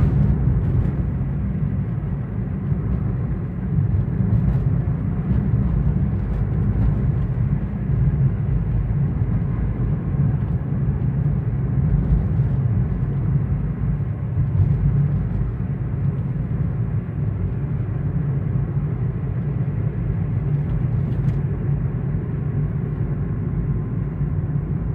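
An engine running steadily and low, with no revving and no change in pitch.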